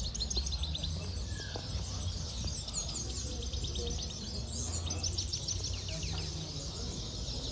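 Caged finch singing a fast, high song of rapid trilling, sweeping notes in phrases, clearest in the middle of the stretch, over a steady low hum.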